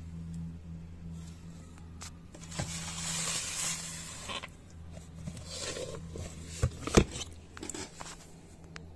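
Scraping and rustling in a plastic tub as an African bullfrog shifts while swallowing a chick, with scattered clicks and two sharp knocks about two-thirds of the way through, over a steady low hum.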